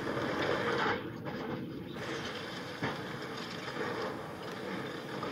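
Demolition excavator breaking up a concrete tower: a continuous crunching and crackling of concrete and falling rubble over the machine's running engine, with a sharper knock about three seconds in.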